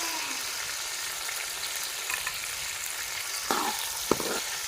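Onions frying in hot ghee in a pan, a steady sizzle, with a few knocks and scrapes of a stirring utensil against the pan near the end.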